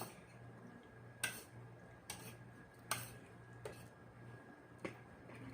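Eating noises close to the microphone: about five sharp mouth clicks and smacks of chewing, roughly a second apart, over a faint steady hum.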